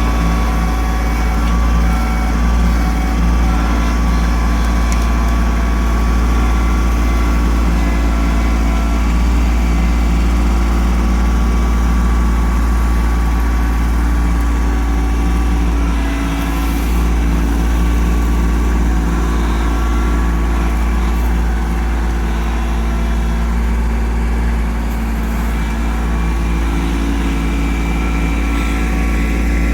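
Kubota LX2610 compact tractor's three-cylinder diesel engine running at a steady speed, with an even, unchanging drone throughout.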